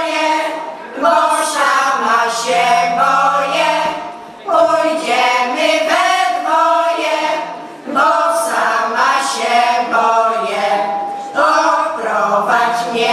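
Women's folk choir singing a Polish folk song, in phrases with short breaks for breath about every four seconds.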